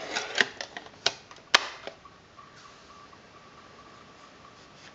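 Folding focusing hood on the back of a Graflex Speed Graphic being folded shut over the ground glass: a quick run of small clicks and knocks as its hinged panels fold down and snap closed, the sharpest about a second and a half in.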